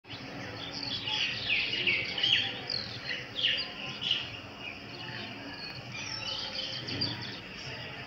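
Common mynas calling: a rapid run of short, downward-sliding notes, busiest in the first half and thinning out later.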